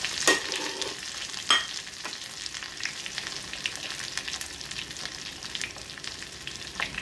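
Rohu fish pieces shallow-frying in hot oil in a kadhai: a steady sizzle with constant fine crackling, and two sharper cracks in the first two seconds.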